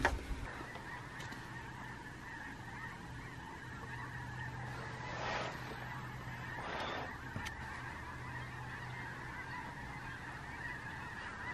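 A large, distant flock of wild geese calling: hundreds of overlapping honks blended into one steady, continuous clamour.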